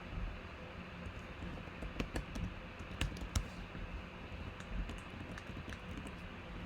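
Typing on a computer keyboard: irregular key clicks, bunched around the middle, over a low steady hum.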